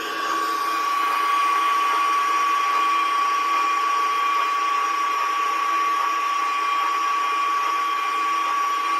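Märklin gauge 1 locomotive chassis running in place on a roller test stand, its electric motor and gear train giving a steady high whine.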